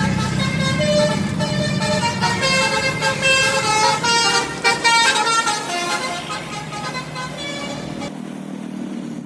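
Bus telolet horn (Basuri multi-tone horn) playing a tune of stepping notes, several tones sounding together. It stops about eight seconds in, leaving a low steady drone.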